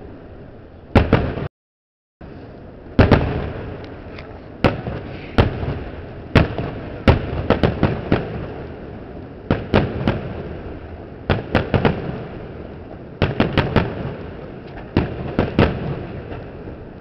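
Fireworks display: aerial shells bursting in sharp bangs, some single and some in rapid clusters of three or four, over a continuous rumble and crackle of the show. The sound cuts out completely for under a second, near the start.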